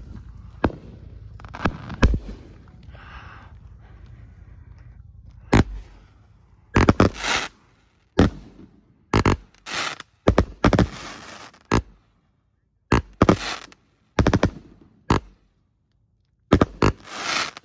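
A 68-shot consumer firework cake firing. Loud bangs come in quick clusters with short gaps from about five and a half seconds in, and some are followed by a short hissing tail.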